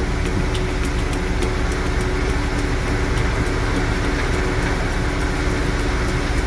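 Debris flow of mud and rocks pouring down a landslide gully: a steady rushing noise that stays even, strongest in the low end.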